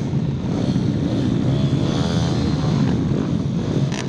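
Several 160 cc pit bike engines running on the starting grid, their revs repeatedly rising and falling as the riders blip the throttles while they wait for the start.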